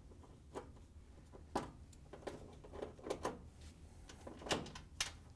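A few light clicks and taps of a Torx-20 driver and screws being worked out of a washer's door switch assembly, spread unevenly, with gloved-hand handling against the metal front panel.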